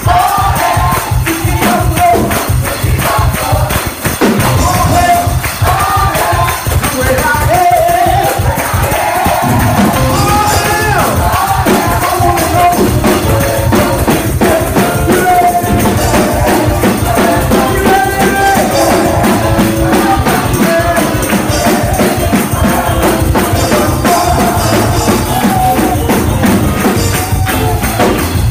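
Gospel choir singing with a live band, a drum kit and cymbals keeping a steady driving beat.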